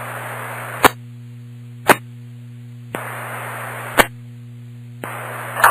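Police scanner radio between transmissions: static hiss that switches on and off as the channel keys up and drops, with a sharp click at each change, about five in all, over a steady low hum.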